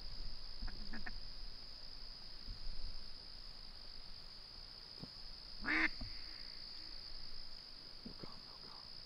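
Faint duck quacks: a short pair about a second in and a louder single quack a little past the middle, over the steady high chirring of crickets.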